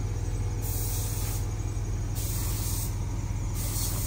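Three hissing spray bursts, each under a second, switching on and off sharply over a steady low engine hum.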